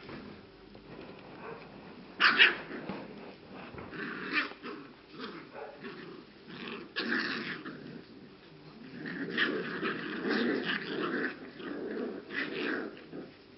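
A litter of six- to seven-week-old English Cocker Spaniel puppies growling and yipping as they play-fight, with a sharp loud yap a little over two seconds in and a busy stretch of growling near the end.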